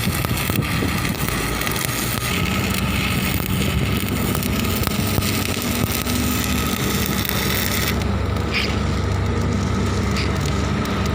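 Electric stick-welding arc crackling and hissing steadily over a low hum. The arc breaks off about eight seconds in, leaving the hum and a few faint ticks.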